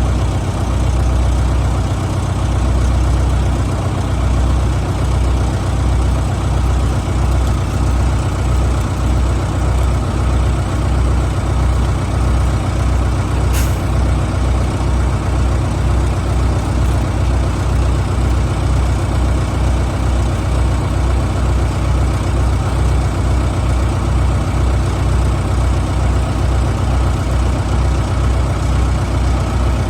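Mobile concrete pump truck's heavy engine running steadily, with a regular low pulsing. A brief sharp sound about halfway through.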